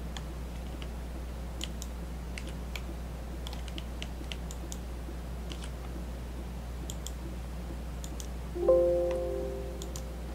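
Scattered computer mouse and keyboard clicks over a steady low electrical hum. About three-quarters of the way through, a short chime of several notes sounds and fades away over a second or so.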